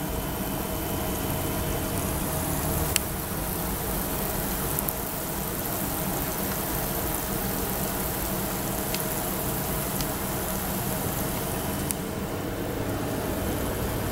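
Steady fizzing of an HHO water electrolysis cell as gas bubbles form on its metal mesh electrodes, over a low steady hum, with a few faint clicks.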